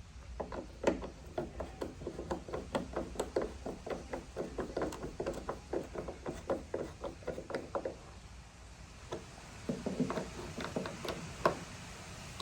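Rapid run of ratchet-like mechanical clicks, about four a second, from hand work on a removed car headlight assembly; it stops about eight seconds in, then a few looser clicks follow.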